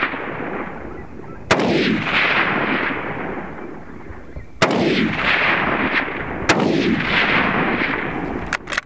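Hunting rifle shots: three sharp cracks, about a second and a half, four and a half and six and a half seconds in, each followed by a long fading echo.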